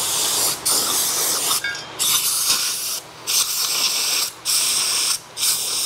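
Compressed-air blow gun on an air hose giving a series of short hissing blasts, about one a second, blowing concrete dust and chips out of freshly drilled anchor holes in a concrete slab.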